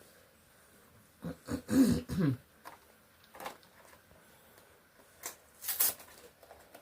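A person clearing their throat once, about a second in, followed by a few short sharp clicks and scuffs.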